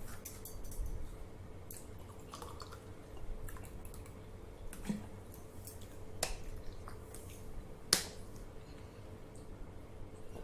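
Water being drunk: scattered small gulping and swallowing clicks, with one sharper click about eight seconds in, over a faint steady hum.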